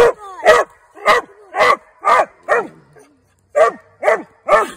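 Treeing cur hound barking treed, nine short barks about two a second with a pause of about a second near the middle: the dog's signal that it has a raccoon holed up in the tree.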